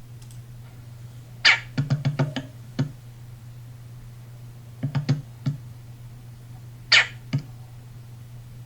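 Two short, harsh bird calls, one about a second and a half in and another near the end, with clusters of quick sharp taps in between, over a steady low hum.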